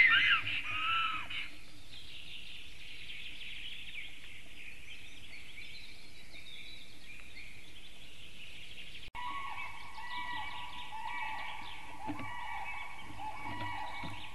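Wild birds calling and singing, picked up by a nest-webcam microphone in a forest. Loud wavering whistled calls fill the first second and a half, then a steady fainter chorus of small birds carries on. The sound breaks off abruptly about nine seconds in and resumes as a different birdsong with steady whistled notes.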